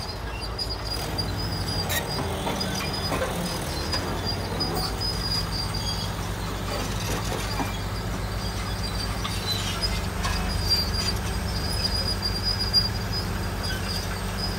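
Hydraulic excavator's diesel engine running steadily close by, with a few sharp knocks, the loudest near the end.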